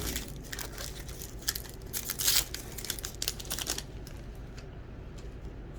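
Crinkling and tearing of a trading-card pack's wrapper as it is torn open and pulled off the cards, with dense crackling for about four seconds, then only a few faint clicks of cards being handled.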